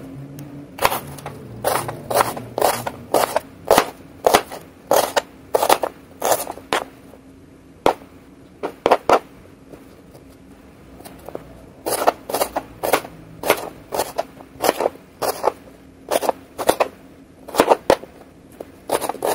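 Serrated knife dicing a white onion on a cutting board: a steady run of chopping knocks, about two a second, with a pause of about two seconds midway.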